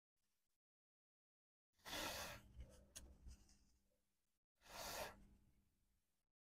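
Two short hissing bursts about three seconds apart, with faint clicks and rubbing as the first dies away: a freshly reworked MacBook logic board being cleaned.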